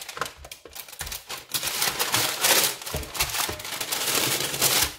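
Baking parchment crinkling and rustling as a metal springform pan ring is worked over it on a baking tray, with scattered clicks and knocks of the metal. It gets louder from about a second and a half in.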